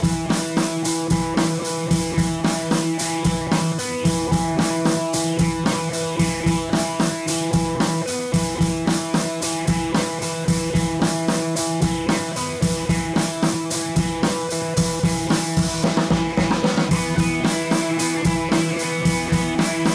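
Background music with a steady drum-kit beat and guitar, cutting in suddenly at the start.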